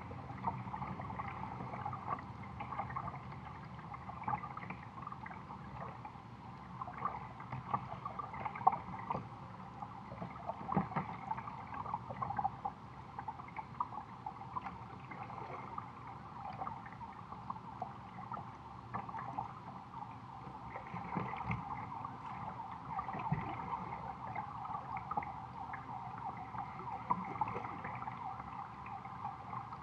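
River water gurgling and lapping against a plastic kayak hull, a steady patter of small irregular splashes.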